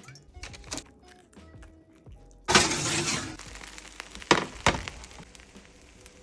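A sudden clatter of kitchenware about two and a half seconds in, then two sharp clinks, over background music.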